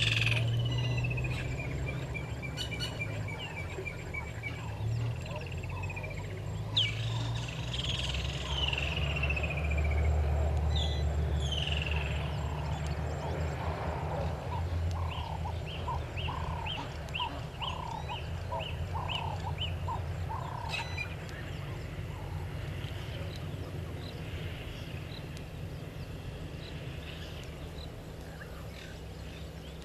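Several birds calling: a few quick descending whistles and a run of high notes near the start, more falling whistles about a third of the way in, then a series of about ten evenly spaced notes through the middle. A steady low rumble runs underneath.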